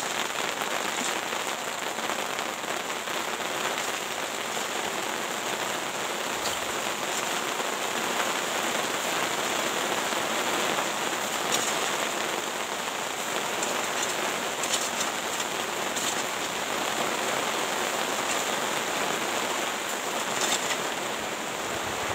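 Steady rain falling, with a few faint knocks of a mattock digging into soil and broken concrete.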